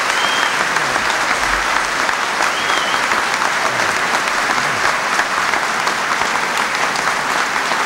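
Sustained applause from a large crowd, steady and loud throughout.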